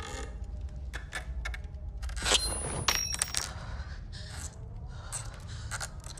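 Horror-film sound design: a low rumbling drone under irregular sharp clicks, crackles and scrapes. The clicks come thickest and loudest between about two and three and a half seconds in, a few of them with a brief metallic ring.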